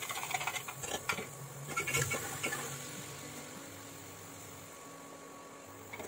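A few clicks and knocks of a plastic chopper container against the pan, then a steady hiss that slowly fades: chopped onion sizzling in hot mustard oil.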